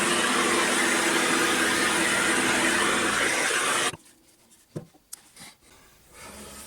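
A machine tool cutting away the cooling fins of an old electric motor casing, running with a steady hum and hiss. It stops abruptly about four seconds in, and a few light knocks follow.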